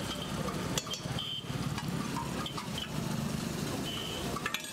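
Street-food stall background: a steady low engine-like rumble with faint voices, broken by a couple of sharp metallic clicks, one about a second in and one near the end.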